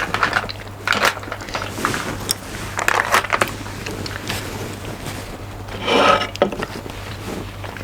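Close-miked eating sounds of spicy noodles being chewed: clusters of short wet clicks and crackles, and one longer, louder noisy burst about six seconds in. A steady low electrical hum from the microphone runs underneath.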